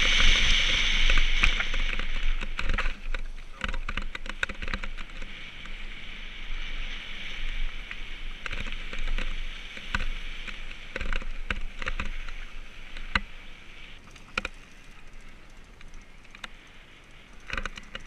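Mountain bike rolling over a rough gravel and cracked concrete path: steady tyre and drivetrain noise with frequent clicks and rattles from bumps, getting quieter as the bike slows.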